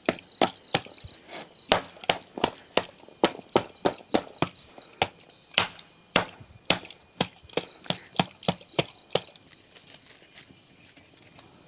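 A whole coconut pounding blocks of jaggery on a plate to crush them to powder: sharp knocks about three a second, stopping about nine seconds in. A steady high insect chirping goes on behind.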